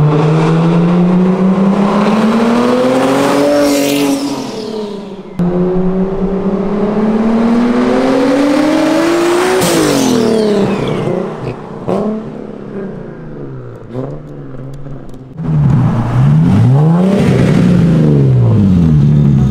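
Turbocharged Nissan 370Z's 3.7-litre V6 on a new downpipe exhaust, accelerating hard. The engine pitch climbs in two long pulls, with a short break and a drop in pitch about five seconds in, then falls as it comes off the throttle about ten seconds in. Near the end the pitch rises and falls several times in quick succession as the car comes up close.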